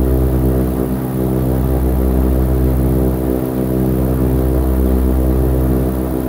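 Steady, unchanging drone of an ABC A60R airship's engines and propellers in cruise climb, heard from the gondola.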